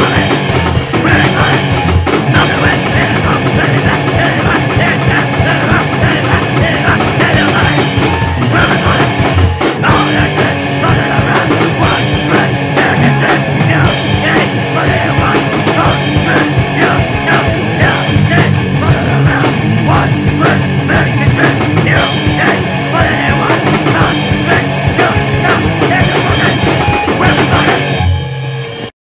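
Powerviolence hardcore punk band recording with drums, loud and dense. The song stops abruptly just before the end.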